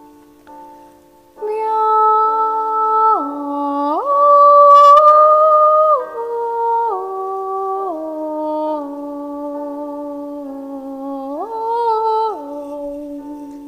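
A voice sings a melody in long held notes that step up and down in pitch, over a softer sustained lower part; it comes in about a second and a half in.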